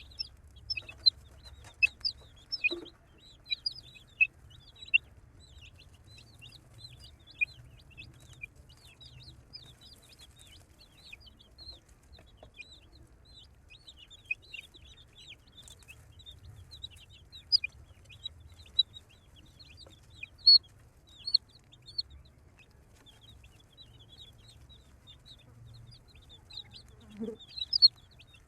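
Many baby chicks peeping continuously in short, high chirps, a few louder than the rest.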